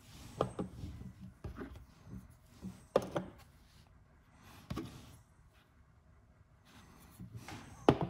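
Small metal cigarette lighter parts being handled and set down on a workbench: a scattered handful of light knocks and clicks a second or two apart, the sharpest one at the very end.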